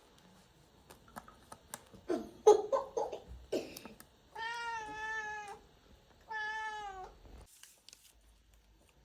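Domestic cat meowing for food: a few short cries about two seconds in, then two long meows of about a second each.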